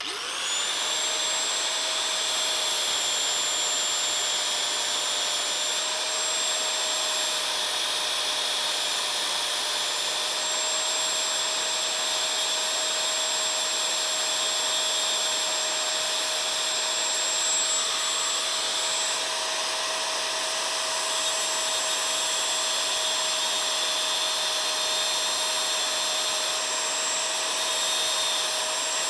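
Angle grinder with a cutting disc spinning up, then running steadily as it cuts a notch into a small steel folding-knife part: a steady high whine over continuous grinding noise.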